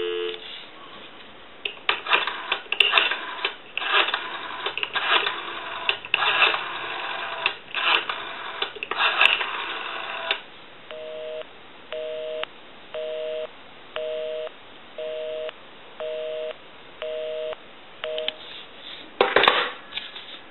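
Dial tone breaks off, then a number is dialed on a Stromberg-Carlson 500 rotary telephone, with about eight seconds of irregular clicks and bursts of noise. A busy signal follows: a two-tone beep about once a second, eight times, meaning the called line is in use. A short burst of noise comes near the end.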